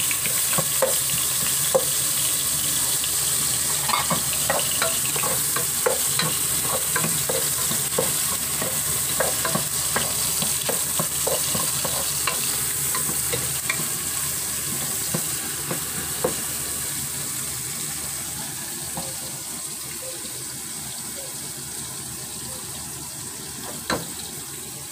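Chopped onion, garlic and tomato sizzling in hot oil in a pot while a wooden spoon stirs them, with frequent short knocks of the spoon against the pot. The sizzle and knocks thin out and grow gradually quieter in the second half.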